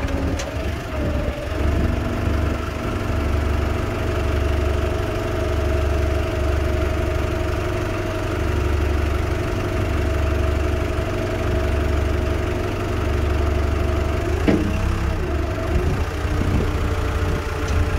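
Forklift engine running steadily under load, with a steady whine as the mast hydraulics raise a car on the forks. A single knock sounds about 14 seconds in.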